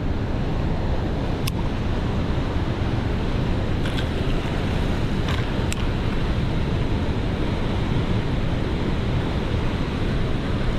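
Steady rushing of water pouring through a dam spillway, an even, unbroken noise, with a few faint clicks.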